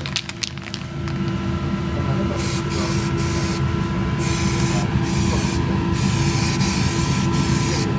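Aerosol spray can of primer hissing in repeated bursts of about half a second to a second and a half, with short breaks between them, starting a little over two seconds in. A steady low hum runs underneath.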